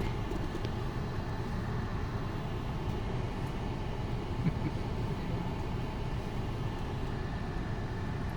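Steady road and engine noise heard from inside a moving vehicle.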